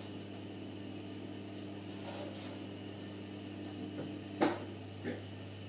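Steady low hum, with a sharp knock of cookware being handled at a gas hob about four and a half seconds in and a lighter knock half a second later.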